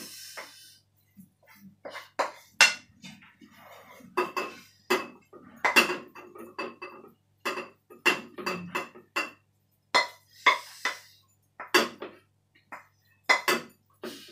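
Wooden spatula scraping and knocking against a metal frying pan and a bowl as chicken chilli paste is scooped out of the pan. Repeated sharp, irregular knocks, many with a brief ring.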